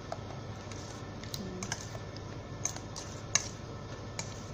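Scattered light clicks and taps from hands working chicken wings in a stainless steel mixing bowl. The sharpest click comes about three seconds in.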